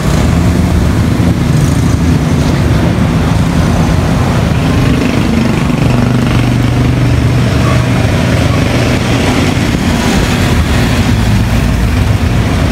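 A loud, steady mechanical rumble like an engine running, unchanging throughout.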